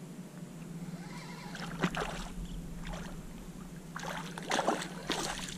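A hooked spotted seatrout thrashing and splashing at the water's surface, in short bursts about two seconds in and again around four to five seconds in.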